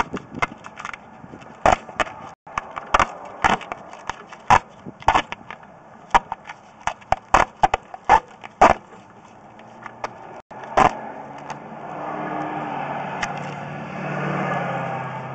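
Irregular sharp clacks and knocks, a dozen or more, then about eleven seconds in a vehicle engine comes in, running steadily.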